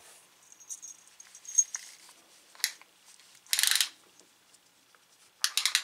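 Small handling noises on a tabletop: scattered light ticks, then a short rasping rattle about three and a half seconds in, and a quick run of clicks near the end.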